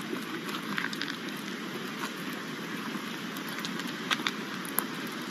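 Steady rush of flowing river water, with scattered clicks and crunches of footsteps and dogs' paws on loose river stones.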